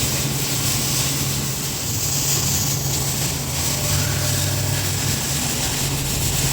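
Steady background machinery noise in a shop: an even low hum with a hiss over it, unchanging throughout.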